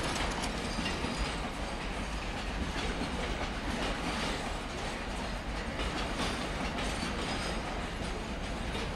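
Container freight train rolling past: a steady rumble of wagon wheels on the rails, with repeated clicks as the wheels cross the rail joints.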